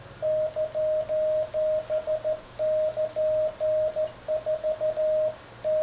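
Hand-sent Morse code (CW) sidetone: a steady tone of about 600 Hz keyed in quick runs of dots and dashes, with a short pause near the end. It is an SKCC-style exchange sent on a combination bug and single-lever key into an Icom IC-7300.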